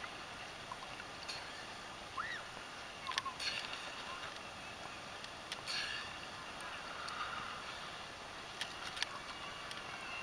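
Seawater lapping and sloshing close to the microphone, which is held just above the surface, over a steady hiss of wind and small waves. A few sharp splashes come through, the strongest about three seconds in and again near nine seconds.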